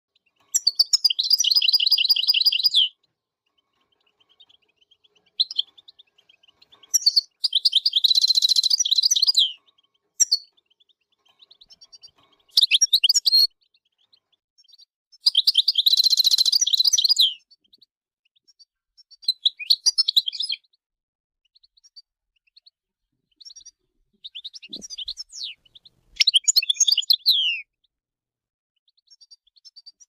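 European goldfinch singing: phrases of fast, high twittering and trills, each a second or two long, broken by short silences.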